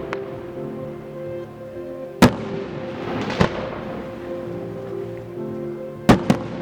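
Aerial fireworks shells bursting: a sharp bang about two seconds in, another about a second later, and a quick double bang near the end, each with a short echoing tail. Steady background music plays underneath.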